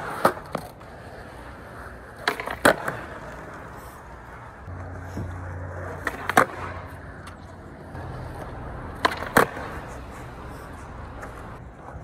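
Wheels rolling over pavement: a steady rumble with a pair of sharp clacks every three to four seconds.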